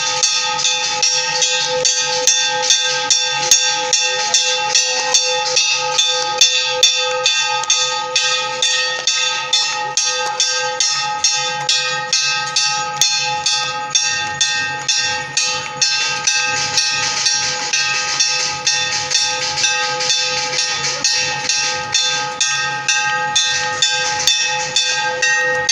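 A large hanging temple bell rung by a rope, struck several times a second without a break, its ringing pitches sustaining under the strikes.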